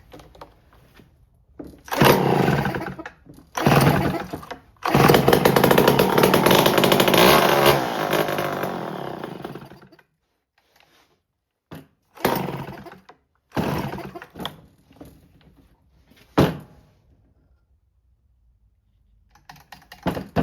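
Homelite C5 two-stroke chainsaw being started. It fires in two short bursts, then runs for about five seconds before fading out and dying. A few more brief sputters follow. The owner expects the stalling will mean a carburetor rebuild.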